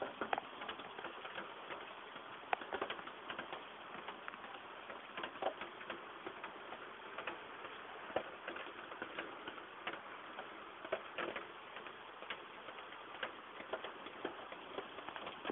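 Heavy rain falling steadily, with many irregular sharp taps and drips of drops landing close by.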